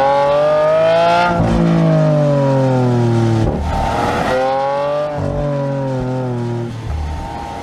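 Lamborghini Aventador V12 engine heard from inside the cabin: the revs climb for about a second and a half, then fall away in three long drops, each break marked by a short crack of a gear change, the engine note growing gradually quieter near the end.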